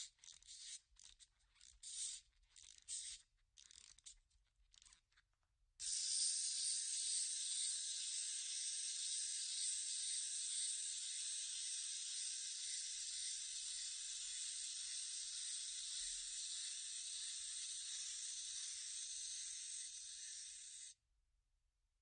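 Clockwork wind-up toy: short, uneven rasping bursts for the first few seconds, then a steady whirr of its spring motor for about fifteen seconds, growing slightly quieter before it cuts off suddenly.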